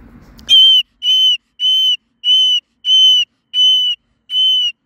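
Seven short, high-pitched beeping tones, evenly spaced about two-thirds of a second apart, starting about half a second in.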